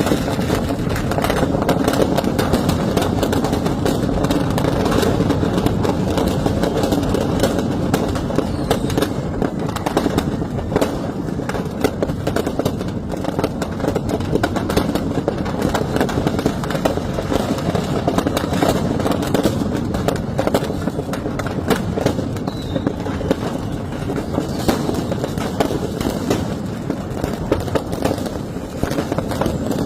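Firecracker stock going off in a burning shop: dense, continuous crackling and popping, many sharp bangs a second without a break.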